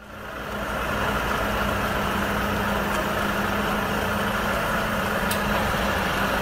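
Diesel engine of a Volvo heavy-haulage tractor unit running steadily at low revs as it crawls forward with an oversize load, a steady low rumble with a constant hum. It fades in over the first second.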